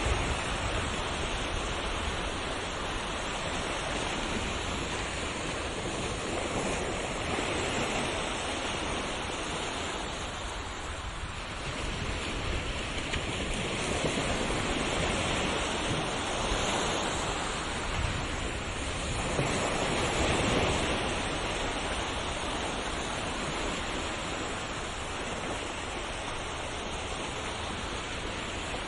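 Ocean waves washing on a shore: a steady rush of surf that swells and eases every few seconds, with a stronger surge roughly every few seconds.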